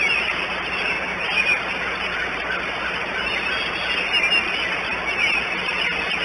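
Steady hiss of rain, with small birds chirping now and then in the background.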